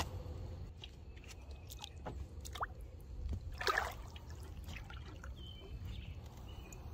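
Pool water dripping and lapping, with a few small splashes and taps around the ladder; one splash about three and a half seconds in is the loudest.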